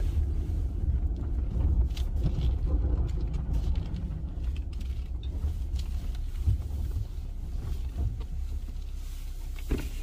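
Jeep Gladiator driving with a steady low rumble, with a few light knocks and creaks, the sharpest near the end.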